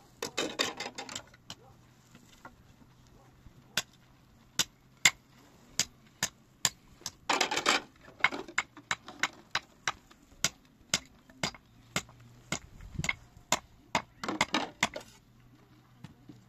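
Sharp knocks of something striking wood, coming irregularly and then about two a second in the middle stretch. Three short scraping or rustling bursts come near the start, the middle and the end.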